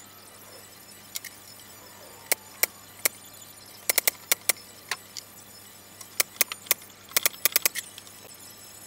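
Pneumatic nail gun firing nails into a plywood cabinet: well over a dozen sharp shots, single at first, then in quick runs of three to five.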